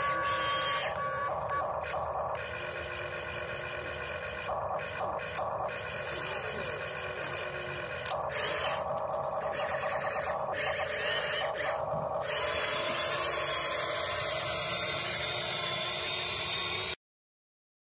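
Huina 1592 RC excavator's electric motors whining as it moves its arm and drives on its tracks, stopping and starting several times, with a couple of sharp clicks. The sound cuts off suddenly near the end.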